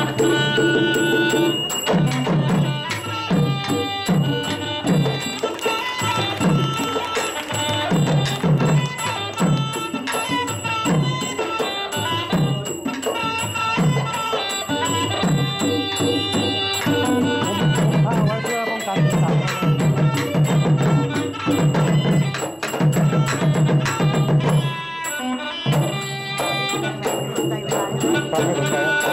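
Southern Thai Nora ensemble music: a held, high reed-pipe melody over quick, repeated strokes of hand drums, with a brief break about 25 seconds in.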